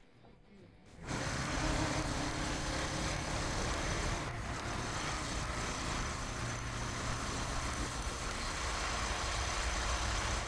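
Motorcycle engine running steadily at riding speed, with a wash of wind and road noise; it cuts in suddenly about a second in.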